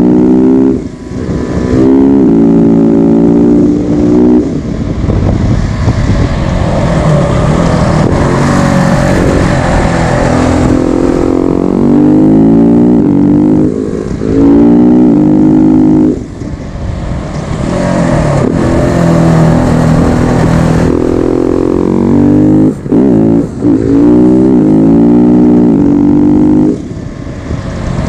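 KTM 690 SMC R's single-cylinder engine under hard acceleration, its pitch climbing and falling back again and again as it runs through the gears, with several short throttle-offs where the sound briefly drops.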